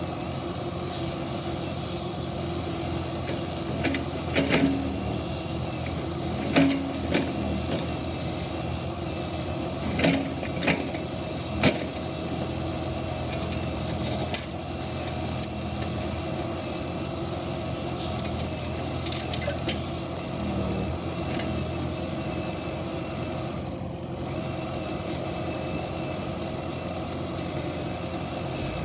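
Kubota KX71-3 mini excavator's diesel engine running steadily, with several sharp knocks and clanks in roughly the first twelve seconds.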